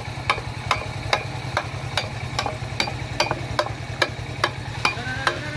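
A hammer strikes a rusty steel pipe in a steady rhythm, about two blows a second, each with a short metallic ring. A steady low hum runs underneath.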